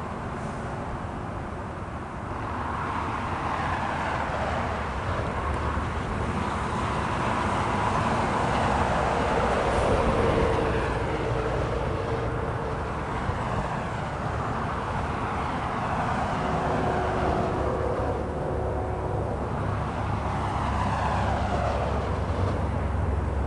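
Road traffic passing on a highway overpass, tyre noise swelling and fading with each vehicle, over a low rumble from an approaching freight train that grows stronger toward the end.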